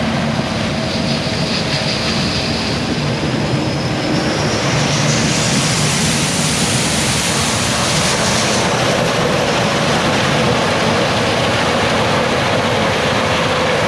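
Fendt Ideal 8 combine harvesting corn: steady engine and machinery noise, with a high whine that climbs in pitch about four seconds in and fades out near nine seconds.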